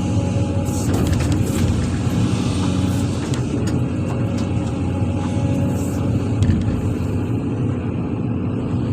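A SANY SY365H excavator's heavy diesel engine running steadily at a constant speed, with a few faint knocks and clicks in the first few seconds.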